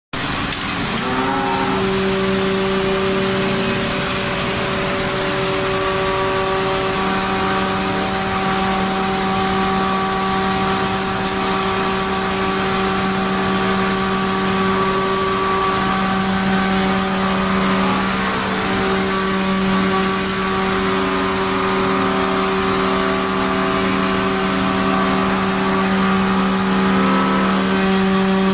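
Router spindle of a CNC contour saw running at steady speed while its vertical router bit cuts a curved profile through hardwood boards: a steady pitched hum with the noise of cutting over it.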